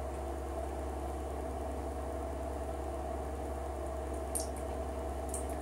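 Bath bomb fizzing in bathwater over a steady low hum, with two brief crackles near the end.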